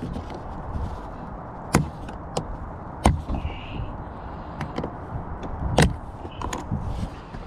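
A string of sharp clicks and knocks, with tools and plastic trim parts being handled at a car's interior door panel.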